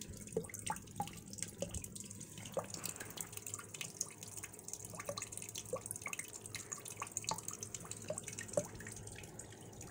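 Water pouring onto the paddles of a small craft-stick model water wheel and splashing into a plastic tub: a steady spray hiss with many small drip-like plinks scattered through it.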